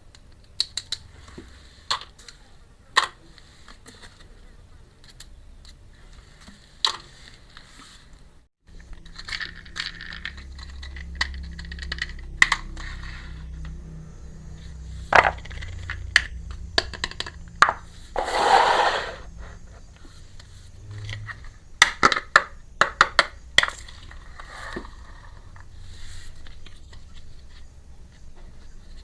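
Small hard pieces of a miniature toy kitchen set being handled and set down, giving scattered light clicks and taps. About two-thirds of the way through comes a scraping rustle lasting about a second.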